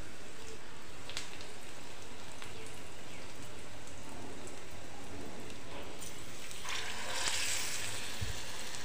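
Hot oil sizzling steadily in a pan as batter-coated potato tikkis deep-fry. About seven seconds in the sizzle grows louder and hissier as another battered tikki goes into the oil.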